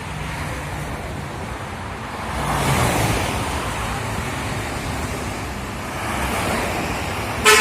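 Highway traffic noise with a bus's low engine and exhaust rumble, swelling about two and a half seconds in as it goes by. Right at the end a bus horn starts to blow.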